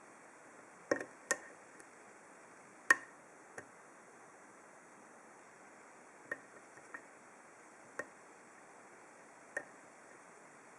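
Lock pick and tension wrench working in an American 1200-series padlock: a scattering of sharp metal clicks at uneven intervals, the loudest about three seconds in.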